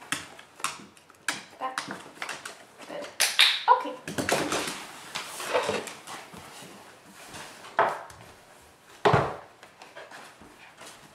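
A border collie moving about on a wooden floor, its claws tapping and scuffing. Scattered knocks and thuds and a rustling drag come from a cushion being lifted and moved.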